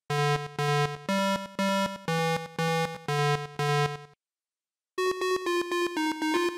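Electronic synthesizer music: a melody of short notes, about two a second, over a bass line, stopping briefly at about four seconds in, then a faster, higher run of notes from about five seconds in.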